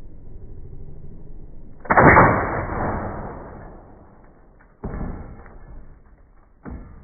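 A pneumatic air rifle shot of an ice bullet striking a ballistic gelatin block, heard slowed down: a sudden deep blast about two seconds in that dies away over about two seconds. Two shorter thuds follow as the gel block and its wooden rest are knocked over.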